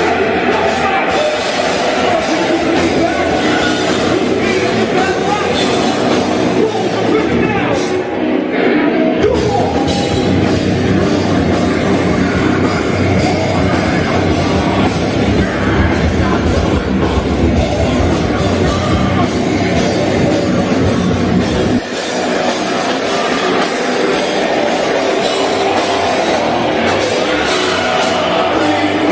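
Nu metal band playing a song with electric guitars and a drum kit, loud and dense throughout. The heavy low end drops away about 22 seconds in, leaving a lighter section.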